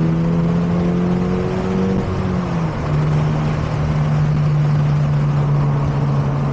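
Toyota GR86's 2.4-litre flat-four with an HKS Spec-L cat-back exhaust droning under way, heard from inside the cabin over wind and road noise through open windows. The engine note drops in pitch about two and a half seconds in, then holds steady.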